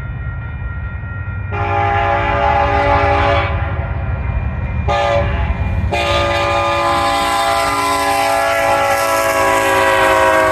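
Union Pacific freight locomotive's air horn sounding the grade-crossing signal: a long blast, a short one, then a long one held on, over the steady rumble of the approaching diesel train.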